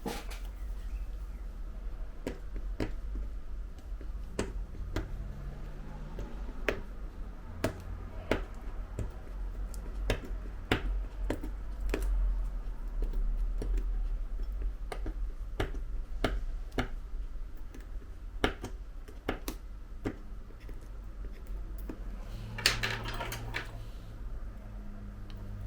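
Scattered small clicks and taps of hands and tools on an opened iPhone 11 Pro Max while its battery's side adhesive pull tab is worked loose, over a low steady hum. A brief scraping rustle comes near the end.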